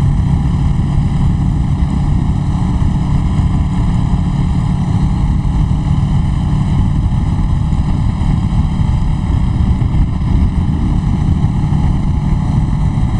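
Kawasaki Ninja 650R parallel-twin engine running at a steady cruise, with wind rushing over a lapel mic, picked up on a cheap clip-on mic.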